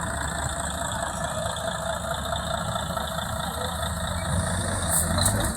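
An engine running steadily at an even pitch, with a few short sharp clicks about five seconds in.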